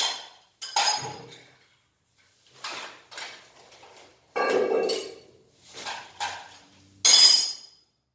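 Metal hand tools (screwdriver, pliers and adjustable wrenches) being handled and set down on a hard surface: a string of about eight separate clinks and clatters, the loudest near the end.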